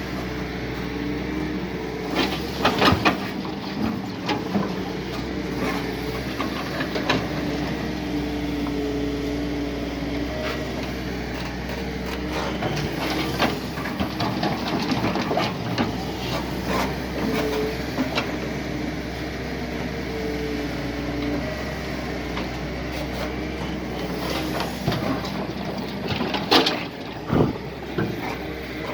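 Doosan DX140 excavator's diesel engine running steadily, with intermittent knocks and clatter, loudest around three seconds in and again near the end.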